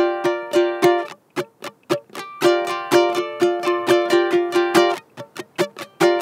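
High-G ukulele strummed in a fast, steady down-up rhythm: ringing Gm7 and Dm chords, the Gm7 struck with a hammer-on, alternating with muted, clicking strums with the fingers resting on the strings. The muted strums come shortly after the start and again near the end.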